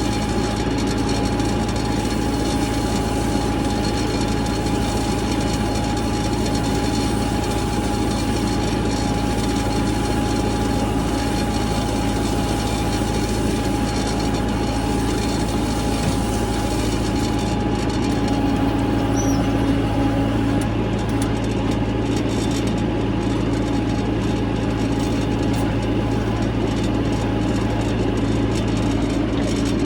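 A vehicle engine running steadily, with a constant high whine held above its hum.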